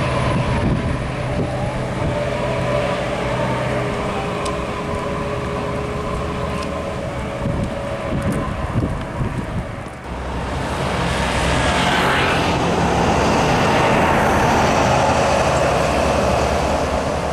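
Heavy diesel coaches and a truck driving past on a highway: steady engine drone and road noise, which dips and then grows louder from about ten seconds in as a Scania coach approaches.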